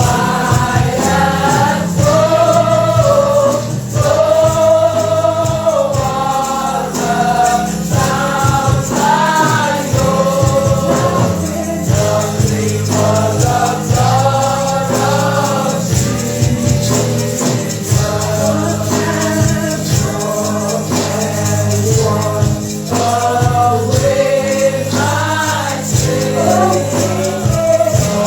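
Gospel praise singing: voices singing over a band with bass and drums, with a tambourine shaking along.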